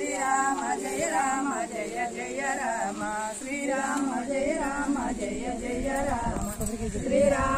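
Women's voices singing a devotional song together, with long held, wavering notes.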